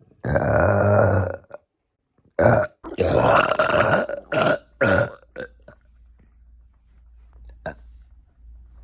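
Loud, deep burping: one long burp of more than a second, then a run of shorter burps over the next few seconds, trailing off after about six seconds.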